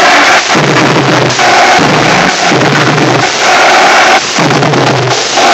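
Marching drumline of snare and bass drums playing a loud, fast cadence, its pattern repeating about once a second.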